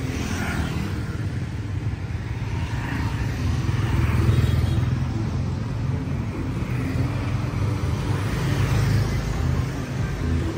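Street traffic of motorbikes and cars passing, a steady low rumble of engines and tyres that swells about four seconds in.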